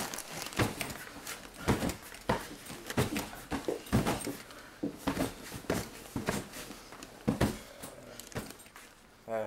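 Repeated dull thuds of kicks and blows landing on a person lying on a hard floor, irregular, about one or two a second. Near the end a short voiced cry begins.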